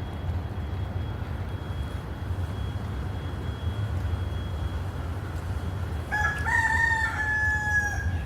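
A rooster crowing once near the end, a single call held for about two seconds, over a steady low rumble.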